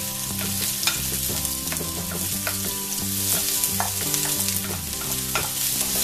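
Freshly added sliced onions sizzling in hot coconut oil in a wide pan: a steady frying hiss with scattered pops, with a wooden spatula stirring them near the end.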